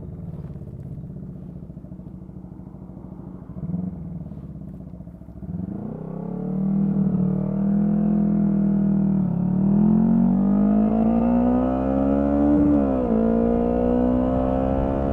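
Honda CB125T's small parallel-twin engine idling quietly, then pulling away about a third of the way in and accelerating, its pitch rising through the gears with two upshifts that each drop the pitch briefly.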